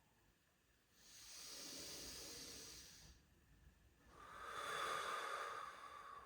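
A person breathing slowly and audibly during a yoga flow: two long breaths, the first starting about a second in and the second about four seconds in.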